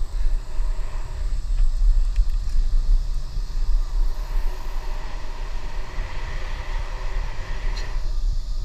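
Steady low rumble of a road bicycle rolling on asphalt, with wind buffeting the action camera's microphone as it rides along.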